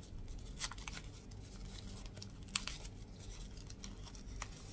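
A thin plastic film and paper screen protector for a smartwatch being peeled and crinkled by hand: scattered small crackles, the sharpest a little past halfway, over a faint steady low hum.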